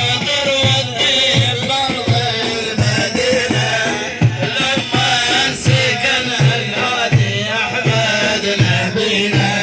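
Instrumental interlude of Middle Eastern music: an even, steady hand-drum rhythm with low beats, under a wavering, ornamented melody line.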